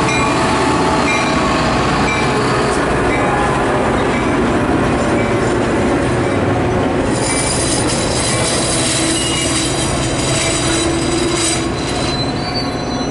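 A train rolling past on the rails, its wheels squealing, with thin high-pitched squeals growing stronger about halfway through.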